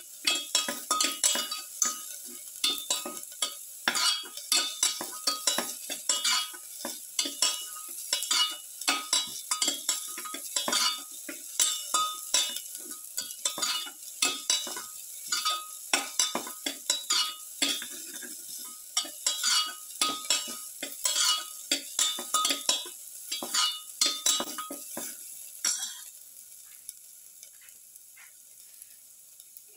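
A metal slotted spoon scraping and clinking rapidly against a steel pan as sliced onions are stirred while frying in oil, with a sizzle underneath. The stirring stops about four seconds before the end, leaving only a faint sizzle.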